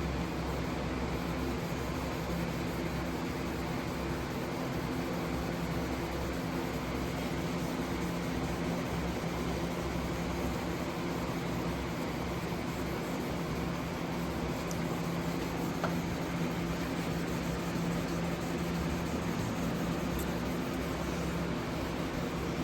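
A steady machine hum with an even hiss, running without change.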